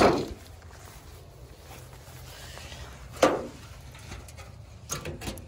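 A sheet of roofing tin being handled on the ground as it is flipped to check underneath: a loud scrape or clatter at the start, one sharp metallic knock about three seconds in, and a few quick knocks near the end.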